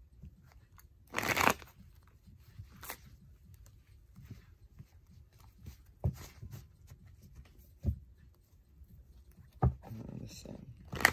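Tarot cards being handled and shuffled: a short rustling shuffle about a second in, then scattered light taps and clicks.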